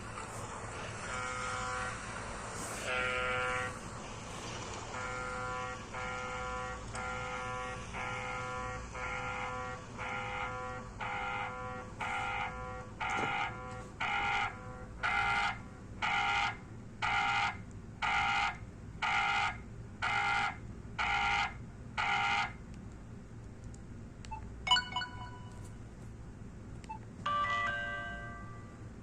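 BlackBerry Curve 9300 playing one of its preloaded ringtones through its loudspeaker: a short electronic ring of several tones at once, repeated about once a second and growing louder partway through, which stops about 22 seconds in. A few short clicks and beeps follow, and another tone starts near the end.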